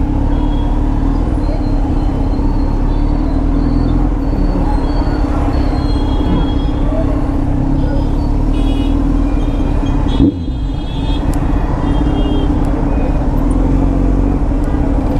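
Kawasaki Z900's inline-four engine with an Arrow exhaust running at a steady note amid road traffic. About ten seconds in there is a single knock, after which the sound dips for a moment.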